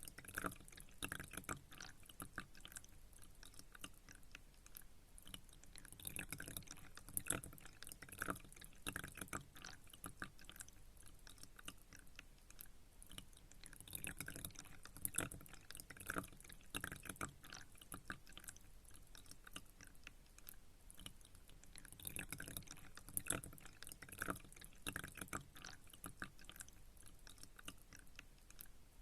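Pond water dripping and trickling: many small, irregular drips and splashes, busier in spells every several seconds, over a faint steady wash.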